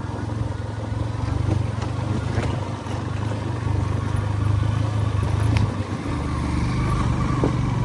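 A road vehicle's engine running steadily under way, a low hum with road noise and no breaks.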